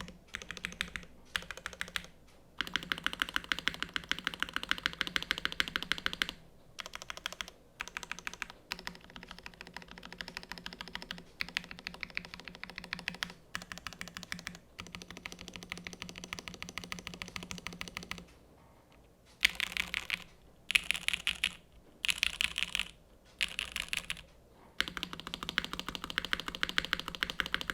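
Typing on a Sanction TKL mechanical keyboard: top-mounted aluminium plate, Gateron X R1 switches lubed with Tribosys 3204, GMK Dracula keycaps. It comes in fast runs of keystrokes a few seconds long with short pauses between, and in four shorter, louder bursts about two-thirds of the way through.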